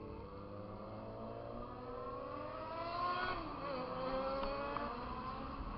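Motorcycle engine accelerating. Its pitch rises steadily for about three seconds, drops sharply at a gear change, then pulls again.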